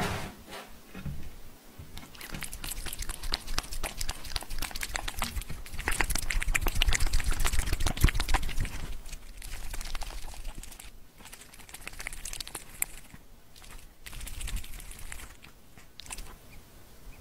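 A cat licking and chewing food off a glass pane: rapid wet clicks and smacks of tongue and teeth on the glass, thickest and loudest in the middle, then sparser.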